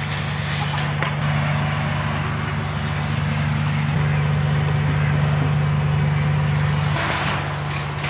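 An engine or motor running steadily with a low hum.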